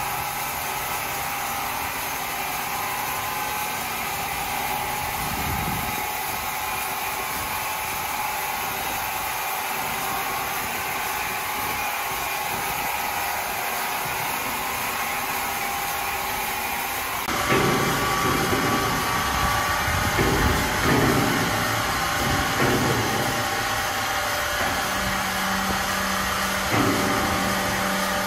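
Powered wood saw running with a steady whir. About 17 seconds in the sound changes abruptly and gets louder and uneven, with low knocks, and a steady low hum comes in near the end.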